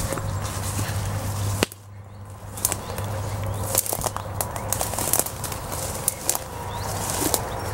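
Someone pushing on foot through dense brush: leaves rustling and swishing against the body and camera, with twigs snapping and crackling in many sharp clicks. A low steady hum drops out after a loud click about one and a half seconds in.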